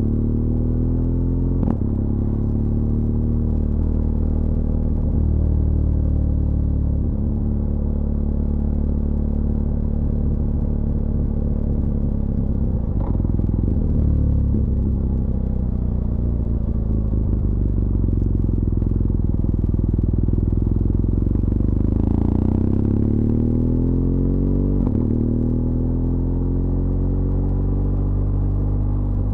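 BMW R1200GS LC Adventure's boxer-twin engine running on the ride down the pass, its pitch dropping and rising again several times as the rider slows and accelerates. A few brief knocks occur along the way.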